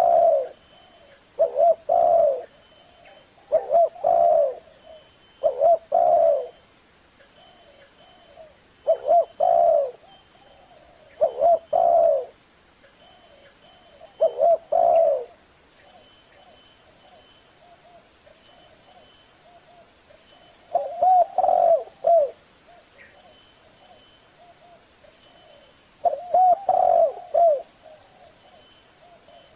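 Spotted dove cooing: about nine short phrases of several low coos each, every two seconds or so at first, then with longer gaps. This is the call used as a lure to draw in wild spotted doves.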